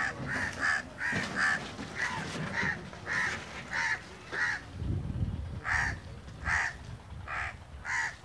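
House crows cawing over and over, about a dozen short harsh caws spaced roughly half a second to a second apart, with a brief low rumble about five seconds in.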